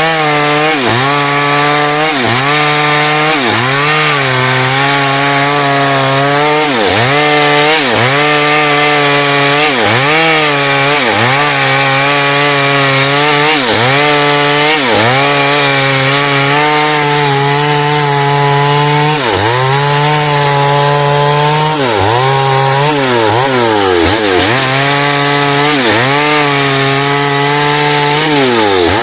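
Two-stroke chainsaw cutting through timber. The engine pitch dips under load and recovers about once a second as the chain bites, then falls away at the very end.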